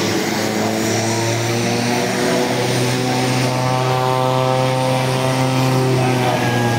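Twin-turboprop plane taxiing, its engines and propellers running with a steady hum of several held tones that grow stronger and shift slightly in pitch about two and a half seconds in.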